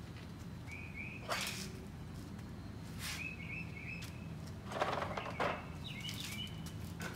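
A songbird chirping in three short runs of quick notes, with a few brief knocks and rustles of handling in between.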